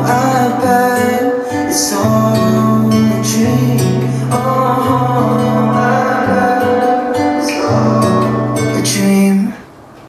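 Guitar-led pop song played through a Sony DAV-TZ150 home theater speaker system with its subwoofer, with a steady bass line. The music drops away sharply shortly before the end.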